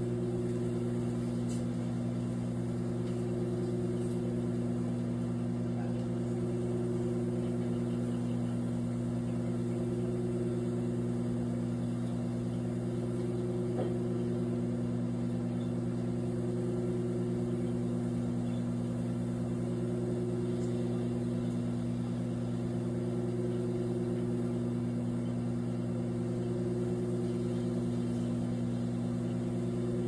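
Microwave oven running while it heats a whole apple: a steady low hum that swells slightly about every three seconds, with a few faint ticks.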